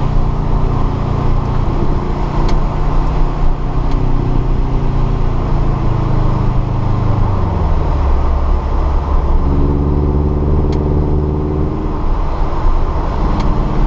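Subaru BRZ's flat-four engine running at track speed, heard from inside the cabin over steady road and tyre noise. The engine note holds steady, falls in pitch about six to eight seconds in, then rises again.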